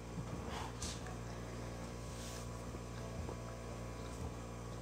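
Steady low electrical hum from a heater, with a couple of faint, brief soft noises over it.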